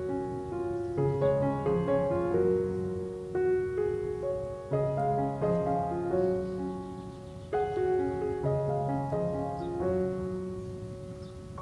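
Soft, slow piano music: a gentle melody of held notes over sustained lower chords.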